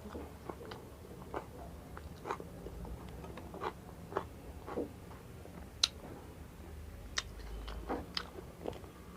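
A person chewing and biting into chatpate, a spicy puffed-rice snack: scattered short, crisp crunches and mouth clicks, irregularly spaced, a couple every second.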